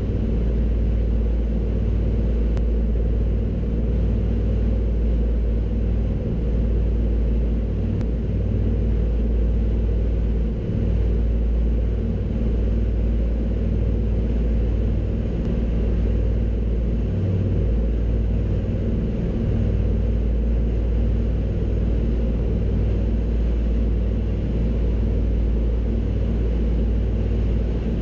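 Avro Anson's twin radial piston engines running steadily: a low, even drone that doesn't change.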